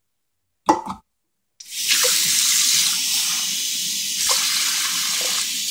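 A short knock, then a kitchen tap turned on about a second and a half in, water running steadily into a cup.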